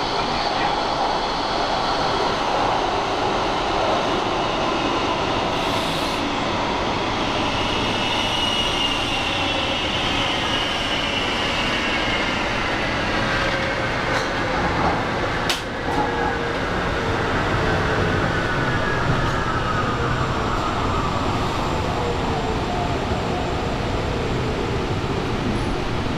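Portland MAX light rail train heard from inside the car, with a steady running rumble. A whine falls slowly in pitch from about a third of the way in as the train slows arriving at the station, and there is a sharp click a little past halfway.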